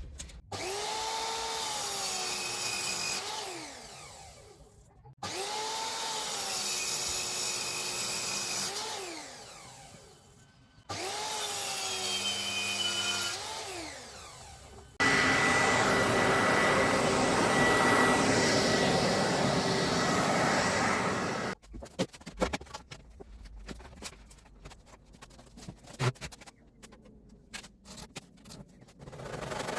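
Electric power tool, likely a saw for the timber framing, run three times for a few seconds, its motor pitch falling as it winds down after each run. A longer, louder run follows, then scattered knocks of timber and tools.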